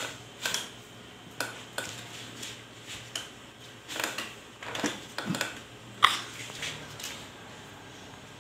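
About a dozen faint, irregular clicks and taps spread over several seconds, the sharpest about six seconds in.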